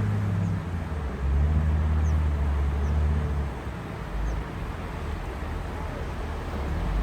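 Sea waves washing on a shore: a steady hiss of surf over a heavy low rumble that swells and eases, dropping somewhat a little past halfway.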